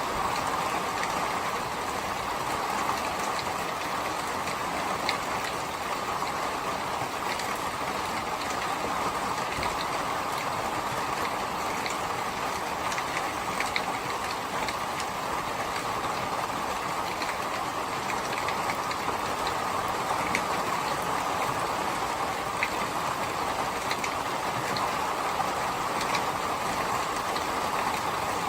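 Steady rain falling, an even rushing hiss with scattered sharp drop ticks.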